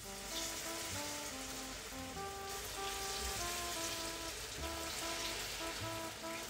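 Arepita batter sizzling as it fries in hot oil in a pan, the steady hiss breaking out suddenly as the spoonful goes in. Background music plays throughout.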